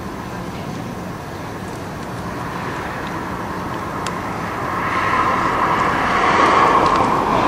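Steady street background hum, then a passing vehicle's noise swells up from about halfway through and stays loud to the end.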